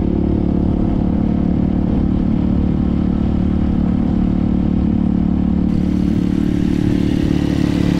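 Motorcycle engine running steadily at an even speed while riding.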